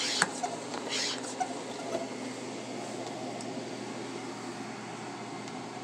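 Pump handle of a pump-up pressure sprayer being worked to build pressure for watering: a few plastic clicks and short air hisses in the first two seconds, then a steady low noise with a constant hum underneath.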